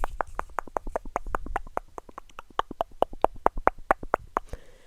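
Close-miked ASMR mouth sounds: a fast, even run of wet mouth clicks and pops, about eight a second, stopping shortly before the end.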